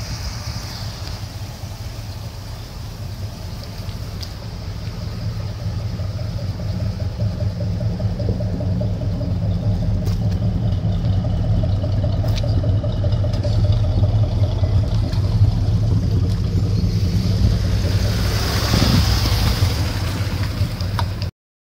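The 500 cubic-inch (8.2 L) V8 of a 1974 Cadillac Eldorado running with a steady low rumble that grows slowly louder. A brief rush of hiss comes near the end.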